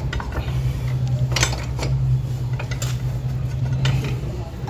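Tools clinking on the rear disc brake caliper of a Royal Enfield Classic as it is worked loose, a few sharp metallic knocks spaced about a second apart over a steady low hum.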